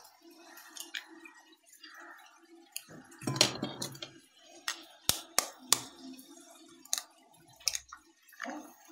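Eggs cracked open with taps of a knife edge on the shell, over a glass bowl of powdered green gram: a series of sharp taps and clicks, with a soft wet splash a little over three seconds in as an egg drops into the bowl.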